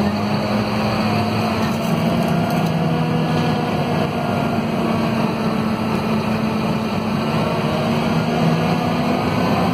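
The Scania DC9 five-cylinder diesel engine of a Scania K230UB city bus running at a steady, constant pitch, heard from inside the passenger cabin.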